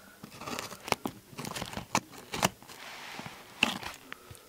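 Paper and plastic parcel packaging crinkling and rustling as it is handled, with scattered sharp clicks.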